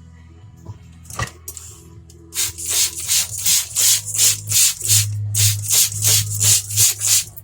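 Chef's knife blade scraped back and forth on a wet 1000-grit whetstone in steady sharpening strokes, about three a second, starting about two seconds in. A single sharp click comes about a second in.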